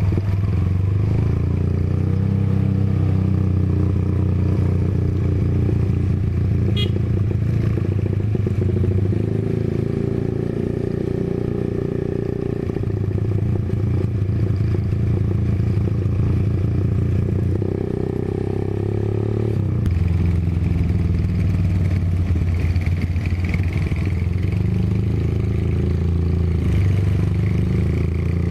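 Honda GL Pro single-cylinder four-stroke motorcycle engine running under way, its note stepping down and back up several times with throttle and gear changes.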